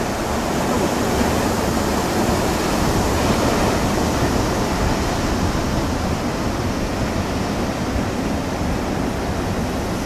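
Ocean surf breaking and washing over the rocks of a jetty, a steady rush of noise with no let-up.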